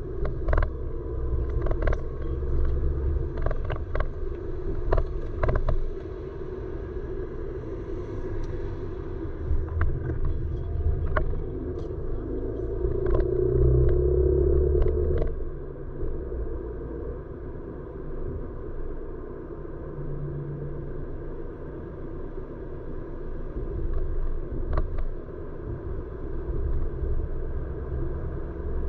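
A car's engine and tyre rumble heard from inside the cabin while driving, with a run of sharp clicks and knocks in the first few seconds and a louder stretch about halfway through.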